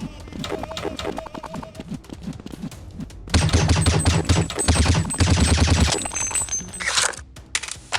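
Background music, then a little after three seconds in, long bursts of rapid automatic gunfire with heavy thumps, breaking off briefly near the end.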